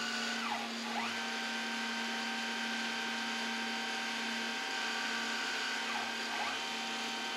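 Home-made CNC mill running a chamber-fluting program, its axis motors whining in several steady tones over a low hum, as the cutter scrapes a flute in the rifle barrel's chamber a thousandth per pass. The whine sweeps down in pitch and back up twice, about half a second in and again about six seconds in.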